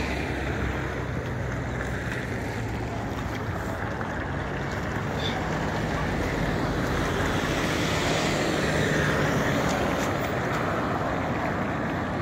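Steady wind rushing over the microphone, mixed with road traffic, with a low engine hum in the middle.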